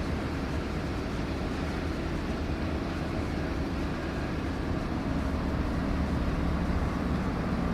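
Heavy-machinery engine rumble running steadily and deep, with no breaks or knocks.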